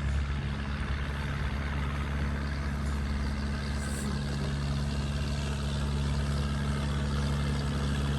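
A large engine running steadily, a constant low drone that does not change in pitch.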